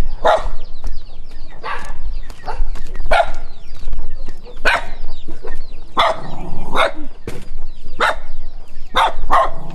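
A dog barking loudly and repeatedly at a stranger, a dozen or so sharp barks coming every half second to a second.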